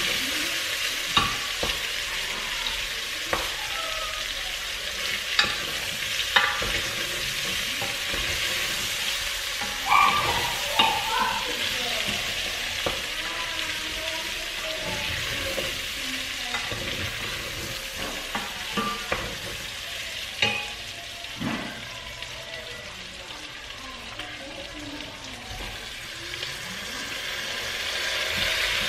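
Beef frying and sizzling in a stainless steel pot as it is stirred with a wooden spoon, with occasional sharp knocks and scrapes of the spoon against the pot. The sizzle grows louder near the end.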